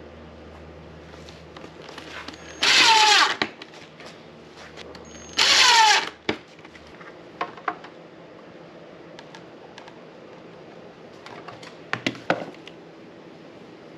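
Drill boring pocket holes through a pocket-hole jig: two short runs of under a second each, the motor's pitch falling as each run ends. A few light knocks follow.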